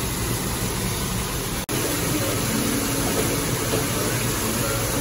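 Steady kitchen noise around a commercial deep fryer: hot oil sizzling over a low steady hum. The sound cuts out for an instant about a third of the way in.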